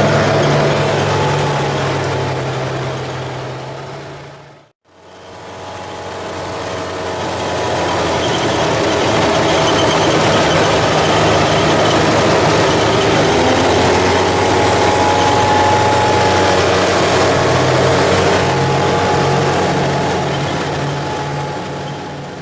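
Ranger utility vehicle's engine running under way off-road, with rushing wind and ride noise over it. The sound fades out completely about five seconds in and fades back up.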